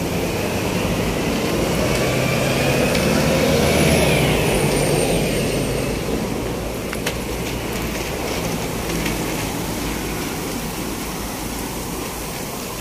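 Engine noise of a passing vehicle, swelling to a peak about four seconds in and then fading away, with a whine that climbs and then drops in pitch as it passes.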